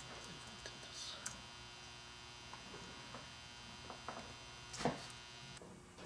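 Steady electrical hum with faint clicks of hands handling plastic Anderson Powerpole connectors on a cable, and one sharper click about five seconds in. The hum cuts off abruptly shortly before the end.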